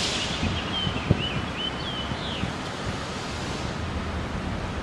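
Steady outdoor rushing and low rumble of wind and distant traffic, with a few faint high chirps in the first half and a single short click about a second in.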